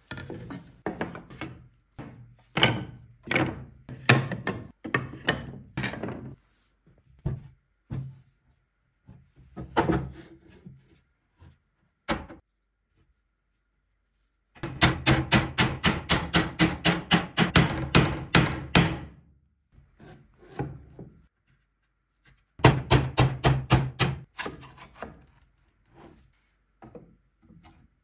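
Old wooden chest boards and rails being handled and knocked on a workbench: scattered wooden clunks and clacks, then a run of rapid knocks at about five a second for some four seconds, and a shorter run a few seconds later.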